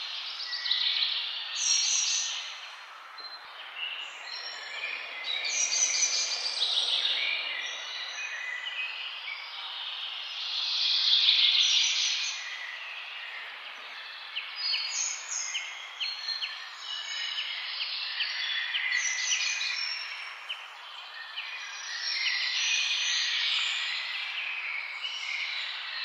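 Songbirds chirping and singing in a busy, overlapping chorus of short high-pitched calls and trills, over a steady background hiss; one burst about eleven seconds in is the loudest.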